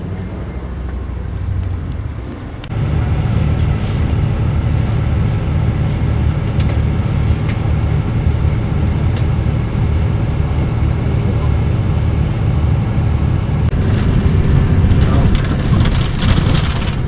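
Tour bus engine running steadily, heard from inside the cabin as a low rumble that comes in suddenly about three seconds in.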